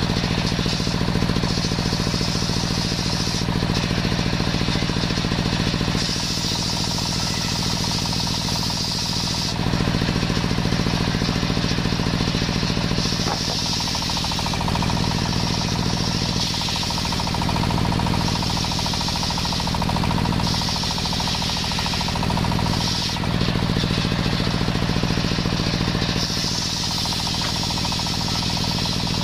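Engine-driven table circular saw running steadily while ripping young coconut wood lengthwise into beams, with the engine's low hum under the saw. The high cutting noise grows and eases every few seconds as the log is pushed through the blade.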